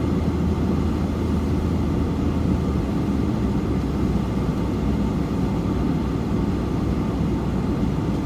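Steady low drone of a four-wheel-drive vehicle driving on a snow-covered, icy road, heard from inside the cabin: engine hum and tyre and road noise. The engine's low hum shifts slightly about three seconds in.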